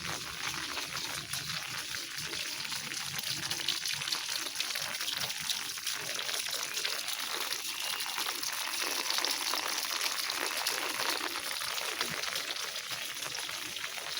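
Water running or falling in a steady hiss.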